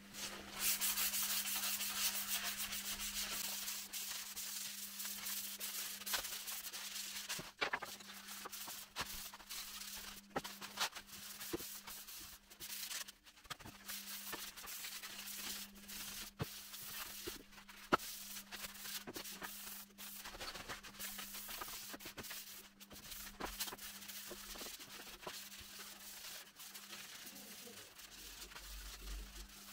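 Wooden window frame being sanded by hand: a steady scratchy rubbing of abrasive on wood, with a few sharp knocks along the way. This is the sanding that keys the old finish so the new paint grips.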